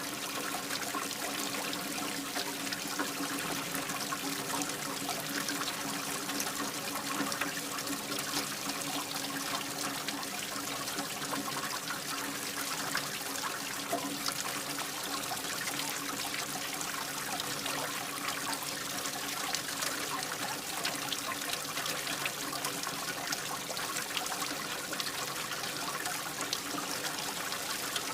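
Steady rain falling, a dense even hiss of many fine drops.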